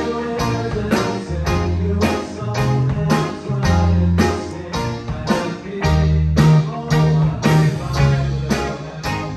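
Live band playing at a rehearsal sound check: guitar over a bass line, with a steady drum beat of about two hits a second.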